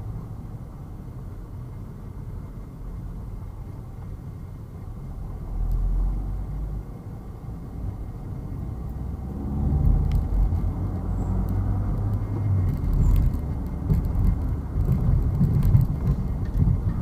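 Car driving on city streets: a steady low engine and road rumble that grows louder about ten seconds in.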